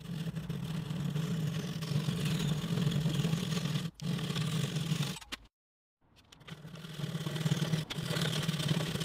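Router on a router table running and cutting joint slots in wood, a steady motor sound. It cuts off suddenly about five and a half seconds in, then comes back and builds up over about a second.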